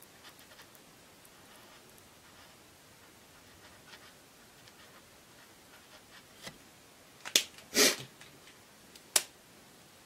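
Copic markers on paper: faint ticks and scratches of a marker tip colouring. Then, about seven to nine seconds in, a sharp click, a short louder rasp and another sharp click as the green marker is capped and an orange one uncapped.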